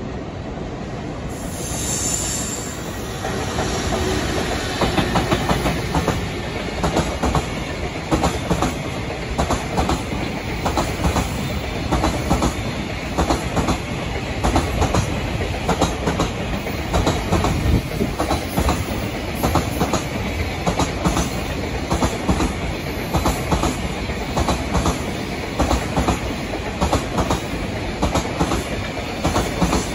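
Long JR Freight container train passing, its wagon wheels clacking over rail joints in a steady, regular rhythm of paired beats over a continuous rumble. A brief high-pitched sound comes about two seconds in.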